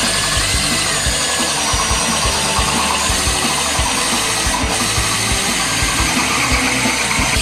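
Power drill running steadily with a diamond grit bit grinding into hard tile or stone wetted with a puddle of water, with irregular low knocks throughout.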